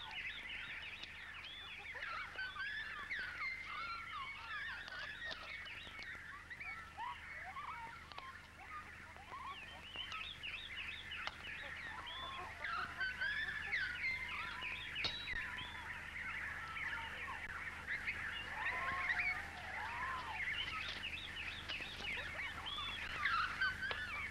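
A dense chorus of many birds chirping and whistling at once, short rising and falling calls overlapping without a break.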